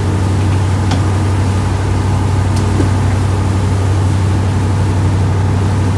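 Boat engine running with a steady low drone, with a couple of faint clicks.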